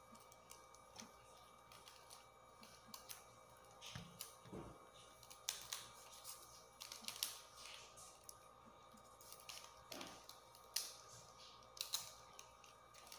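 Faint, irregular clicks and short scrapes of a kitchen knife cutting and shaving the fibrous base of a pineapple crown.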